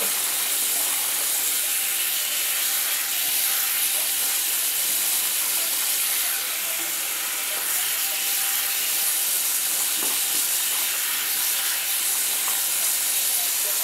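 Water running steadily from a bathroom sink tap, splashing over a guinea pig being rinsed and into the foamy basin.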